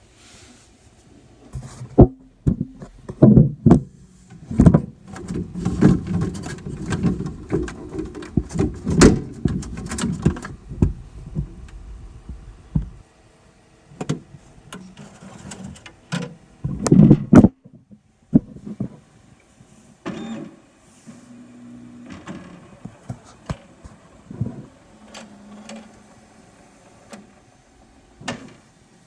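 Dremel 3D40 3D printer's small electric motors running in short stretches, mixed with many clicks and knocks from handling the printer's plastic parts while filament is loaded.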